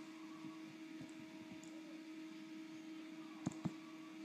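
Computer mouse clicking: two quick clicks close together about three and a half seconds in, with a few fainter clicks earlier, over a steady low electrical hum.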